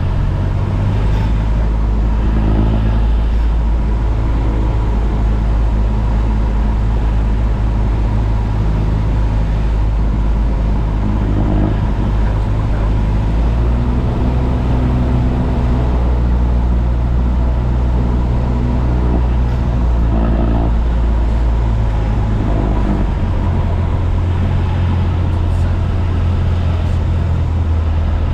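Single-engine light aircraft's piston engine and propeller droning steadily, heard from inside the cockpit while running at power through a touch-and-go.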